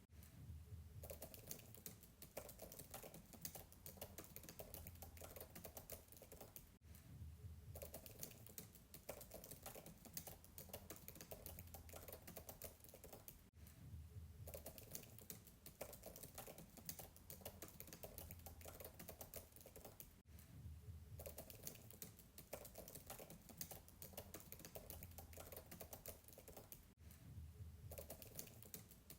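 Fast typing on a MacBook keyboard heard from a distance: a faint, rapid run of soft key clicks, broken by a short pause about every seven seconds.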